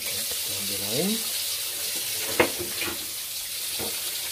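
Kitchen tap running steadily into a sink, with one sharp clink about two and a half seconds in.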